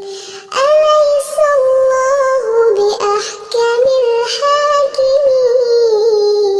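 Melodic Quran recitation (tajweed chanting): a single voice holding long, ornamented notes. A brief breath pause comes at the start, then a new phrase begins about half a second in.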